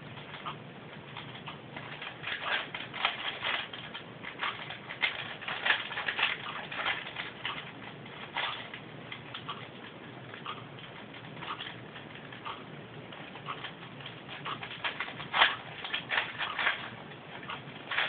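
Plastic clicking and clacking of a 4x4x4 Rubik's Cube as its layers are turned by hand, in quick irregular runs of turns with short pauses between, sparser in the middle.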